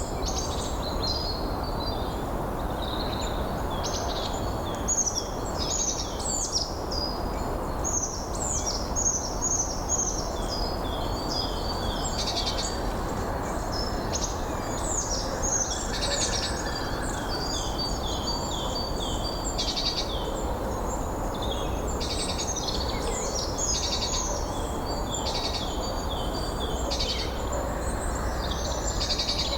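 Several small birds singing and chirping in quick, overlapping phrases, over a steady rush of wind.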